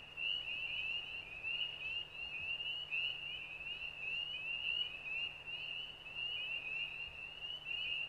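Chorus of frogs calling: many quick, high-pitched notes overlapping in a steady run, over a low steady hum.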